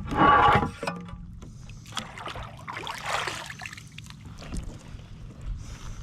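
Bumps, scrapes and rustling of handling aboard a kayak, with a loud scraping burst at the start, two softer rustling bursts around two and three seconds in, and scattered small knocks.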